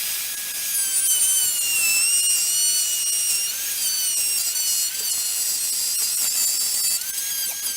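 Electric wood router running at high speed and cutting into the oak door: a steady high whine whose pitch dips slightly now and then as the bit takes load. It cuts off suddenly near the end.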